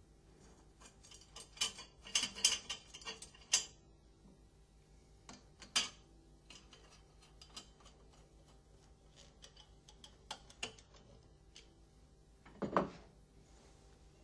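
Metal clicks and light rattling as a stainless-steel pump safety guard is fitted and its screw tightened by hand tool: a cluster of sharp ticks in the first few seconds, scattered single clicks after, and a duller knock near the end.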